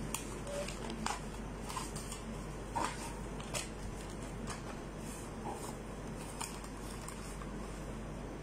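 Sheets of white wrapping paper being handled for wrapping sandwiches: light scattered rustles and crisp ticks, about one a second, over a steady low hum.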